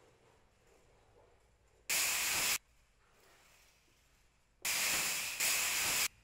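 Aerosol spray-paint can hissing in three short bursts as paint is sprayed onto a wall: one about two seconds in, then two back to back near the end. Each burst starts and stops abruptly.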